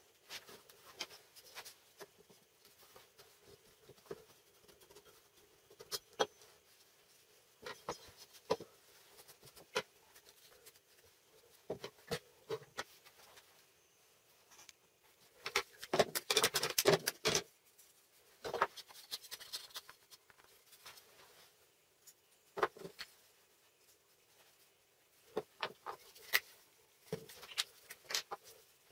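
Scattered clicks and knocks of small wooden and plastic clamp parts being handled and set down on a wooden tabletop, with a quick run of rattling knocks about halfway through.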